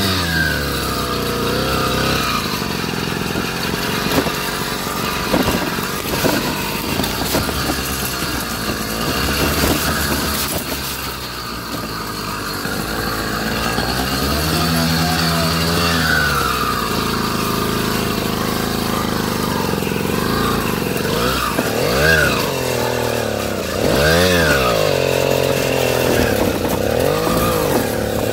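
Small off-road vehicle's engine running and revving up and down repeatedly as it drives along a bumpy dirt trail, with knocks and rattles from the jolting ride.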